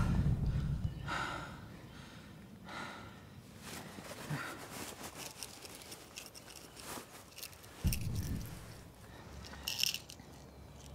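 Slow, heavy breaths and rustling movement, with a dull thud about eight seconds in.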